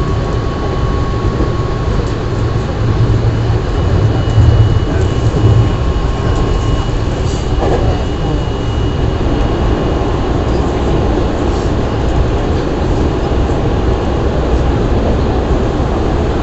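Cabin running sound of a renewed JR West 207 series 0-bandai commuter EMU under way between stations: a steady rumble of wheels on rail, swelling slightly a few seconds in. Faint steady high tones come and go and fade out around the middle.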